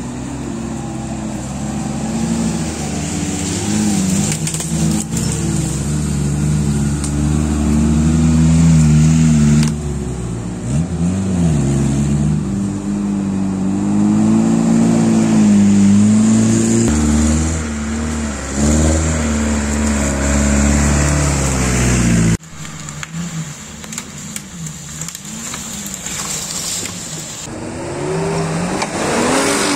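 Suzuki Vitara 4x4 engines revving up and down as they climb an off-road forest trail. About two-thirds of the way through the sound drops suddenly to a quieter engine note, and the revs rise again near the end.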